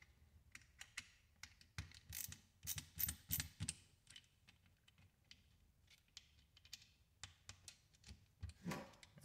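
Hand screwdriver turning screws into a plastic power-tool housing: faint scattered clicks and short scraping ticks, busiest between about two and four seconds in.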